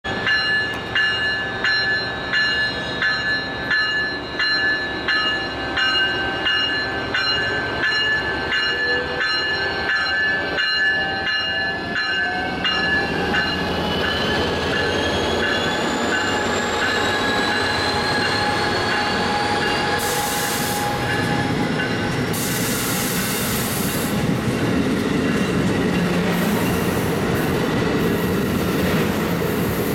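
Amtrak Siemens Charger diesel-electric locomotive pulling a passenger train out of a station. A bell rings about twice a second for the first dozen seconds, and the locomotive gives a rising whine as it accelerates past. Then the steady noise of the passenger cars' wheels on the rails follows, with a couple of brief high squeals.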